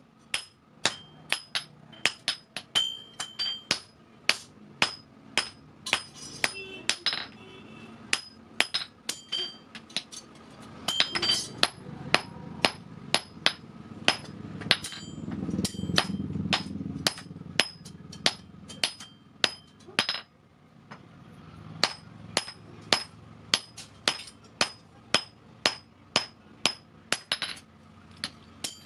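Blacksmith's hammer striking the steel of an old vehicle axle on the anvil as it is forged into a hammer head: a long run of ringing metal-on-metal blows, about two a second, with a brief break near two-thirds of the way through. A low rushing noise swells under the blows in the middle.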